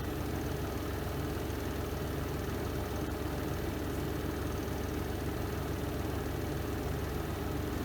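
Renova semi-automatic twin-tub washing machine's spin drum spinning: a steady, even low hum with no change in speed.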